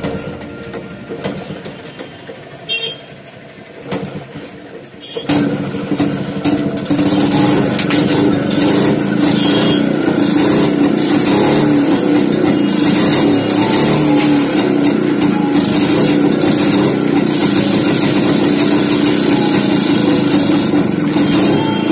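Yezdi motorcycle's two-stroke engine catching about five seconds in and then running steadily on its newly fitted CDI ignition, the exposed magneto flywheel spinning with its cover off.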